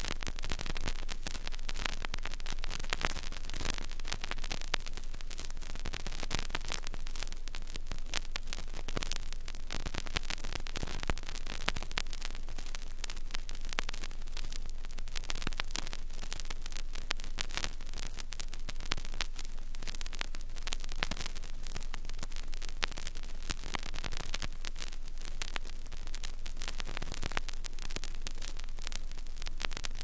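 Surface noise of a vinyl record playing a blank stretch of groove: steady hiss with dense crackle and clicks.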